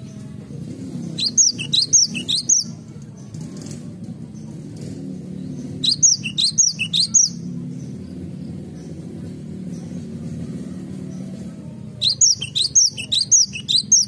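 Cinereous tit singing three short bouts of a quickly repeated high two-note phrase: about a second in, near the middle, and near the end. A steady low hum runs underneath.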